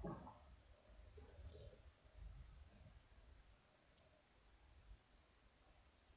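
Near silence: room tone with three faint, short clicks of a computer mouse spaced about a second apart.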